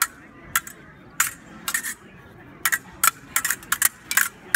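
Fencing sabres clashing blade on blade during a bout: about a dozen sharp metallic clinks, irregular and coming faster in the second half.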